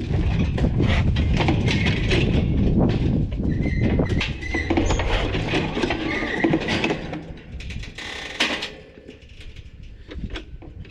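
Q-Catch cattle squeeze chute clanging and rattling, its steel gates and head catch knocking as a cow is held in it and the lever is worked, over a heavy low rumble. About eight seconds in comes one sharp metal clang, and after it only scattered lighter knocks.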